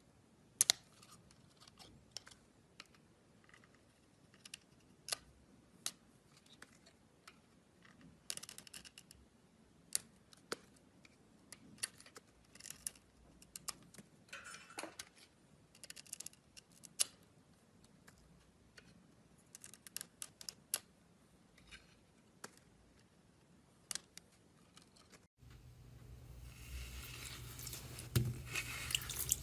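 A run of sharp, irregular clicks and snips, some in quick clusters, over a quiet background. About 25 seconds in it cuts to a steady low hum with louder hiss and clicks.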